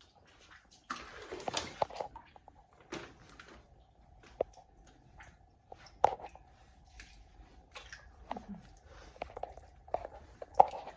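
Scattered squelches, clicks and knocks of someone moving about in wet mud and flood debris, with a faint steady hum underneath.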